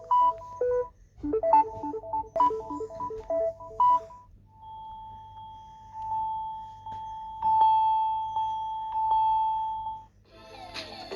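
Samsung Galaxy S22+ ringtones playing: a melody of short notes for about four seconds, then a different ringtone holding one long tone that swells and fades. A busier tune starts near the end.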